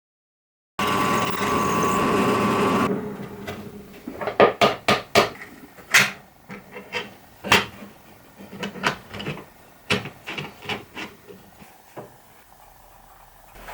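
A power tool runs steadily for about two seconds. Then come about a dozen irregular knocks of a hammer on wood, some much louder than others.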